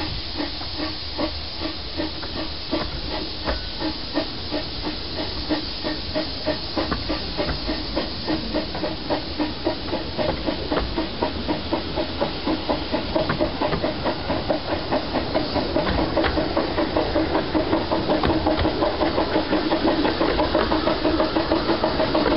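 15-inch gauge 2-6-4T steam tank locomotive working along the line, heard from the train behind it: rapid, even exhaust beats over a steady steam hiss, growing louder about two-thirds of the way through.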